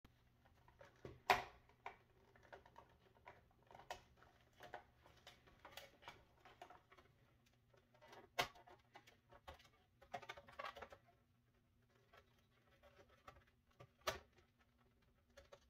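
Faint handling noises of wires being worked out of the plastic wiring clips of a refrigerator water-filter housing: small rustles and plastic clicks, with three sharper clicks about a second in, about eight seconds in and near the end. A faint steady low hum sits underneath.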